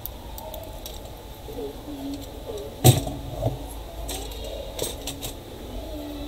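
Small knocks and clicks of things being handled on a workbench, the loudest a sharp knock about three seconds in, followed by a few lighter clicks.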